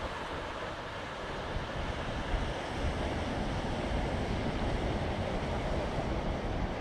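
Surf breaking and washing up a sandy beach, a steady noise, with wind buffeting the microphone.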